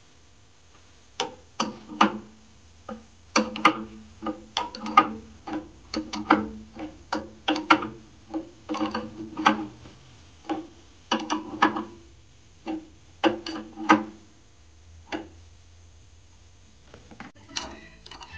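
Irregular series of sharp knocks or taps, each with a short pitched ring, coming one to three a second. They stop about fifteen seconds in and resume briefly near the end.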